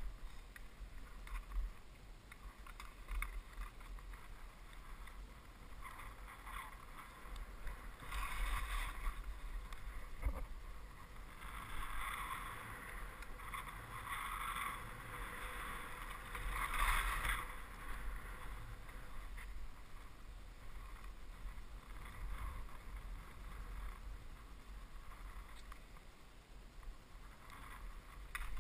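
Skis hissing and swishing through powder snow, swelling louder with the turns every few seconds, over a low wind rumble.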